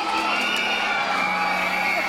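Audience cheering, with high-pitched screams held over a steady crowd noise.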